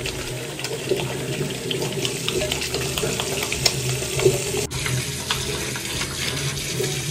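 Bathroom tap running into a ceramic washbasin while wet hands rub bars of soap into lather, the steady splash flecked with small wet squelches and crackles.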